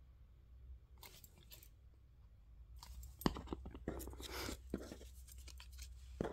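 Paper and card rustling and crinkling as they are handled and pressed together by hand, starting about three seconds in after a couple of faint taps.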